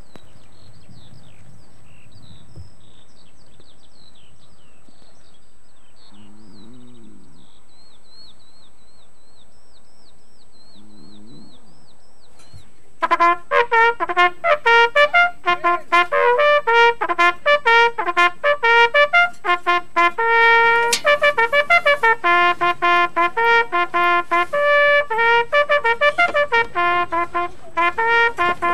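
Birds chirping over a quiet, steady background, then brass music with a trumpet melody starts a little before halfway and plays on in a steady rhythm.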